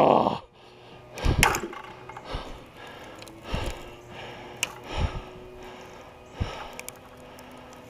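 Handling noise from a fishing rod and spinning reel held close to the camera under heavy strain: a few scattered knocks and thumps, the loudest about a second and a half in.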